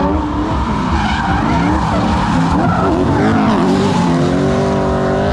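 Two drift cars sliding past in tandem: their engines rev up and down, the pitches crossing each other, over the rushing tyre noise of the slide. The engine note steadies and holds near the end.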